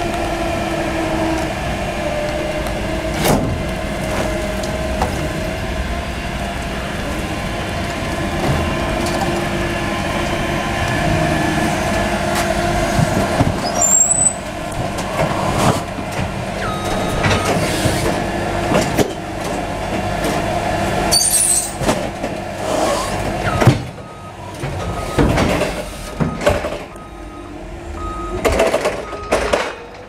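Crown FC electric forklift working a pallet into a steel refrigerated container: a steady electric motor whine as it drives in, then clanks and knocks as the pallet goes down and the forks come out. In the second half there is a short beep repeating about once a second.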